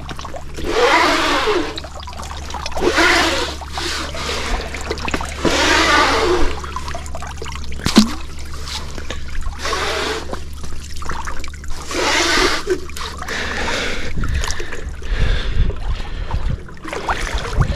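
Water splashing and trickling as a hand scoop sloshes it over a whitebait net's mesh screen, in repeated splashes a second or two apart. A sharp click about eight seconds in, and wind rumble on the microphone near the end.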